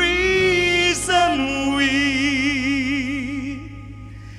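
A singer performing live into a microphone over soft musical accompaniment: a held note, then a long note with wide vibrato that fades out near the end.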